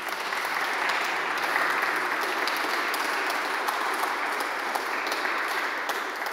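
Audience applause: dense, steady clapping from many hands.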